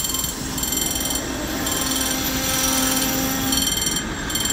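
A level-crossing warning bell rings in a repeating on-off pattern as a diesel railcar passes close by. The train's running noise swells in the middle.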